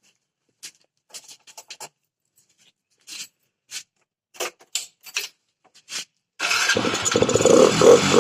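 A few scattered clicks, then about six and a half seconds in a Hero Passion Pro BS6 motorcycle's single-cylinder engine starts and runs loudly with a pulsing beat. It is running with its air filter element removed, which is meant to give a louder, sportier intake sound.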